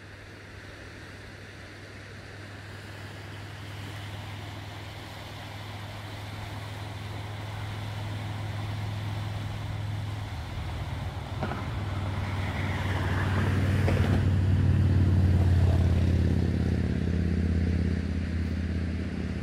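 An engine running with a steady low hum, growing gradually louder over about fifteen seconds, then easing slightly near the end.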